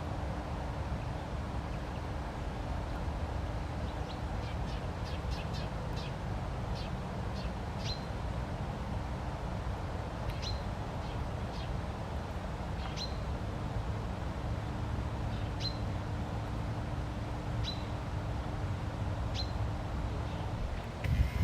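A small bird giving short high chirps, several faint ones about four seconds in, then single chirps every two seconds or so, over a steady low rumble with a faint hum. A short bump near the end.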